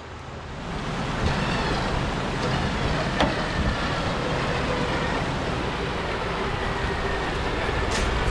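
Nissan 4WD's engine running under load as the vehicle is winched up out of a snowy creek, over the rush of creek water. The sound swells about half a second in and then holds steady.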